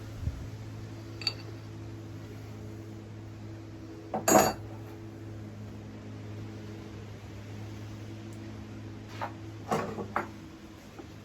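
Metal tools and engine parts clanking during dismantling: two light knocks at the start, one loud clank about four seconds in and a few more clanks near the end, over a steady low hum.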